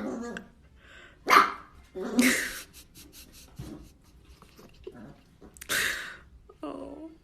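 Dog barking: several separate barks with pauses between them.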